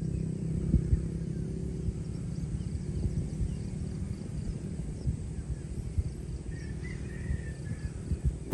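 Outdoor countryside ambience: a low, uneven rumble throughout, with a few faint bird chirps about seven seconds in.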